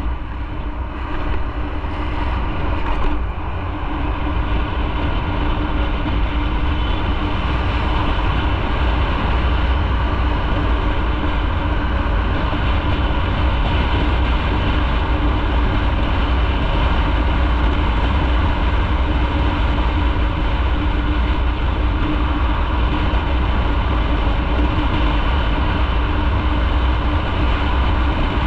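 Motorcycle engine and wind and road noise heard from a camera on the moving bike: a steady running note over a low rumble. It builds over the first few seconds, then holds at an even cruising level.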